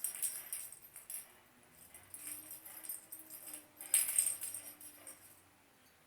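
Small jingle-bell cat toy ball jingling in irregular bursts as the cat bats it and it rolls, loudest about four seconds in.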